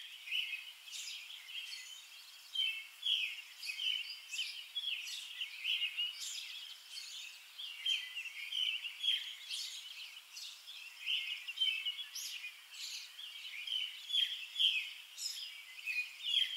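Birds singing and chirping: a steady stream of short, high chirps that overlap throughout.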